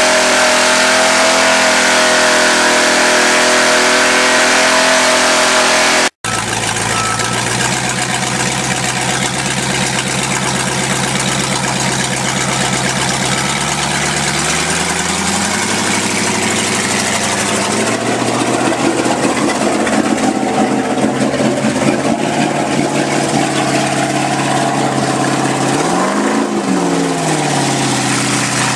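Mud bog truck's engine held at high revs as the tyres churn and throw mud; after an abrupt cut it runs at lower revs, revs up about halfway through and gives a quick rev up and down near the end.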